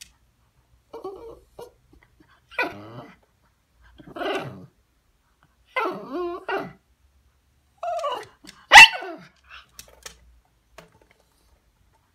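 An American Water Spaniel–poodle mix vocalizing in a string of short sounds, one every second or two, as if trying to communicate. A loud, sharp bark comes about nine seconds in.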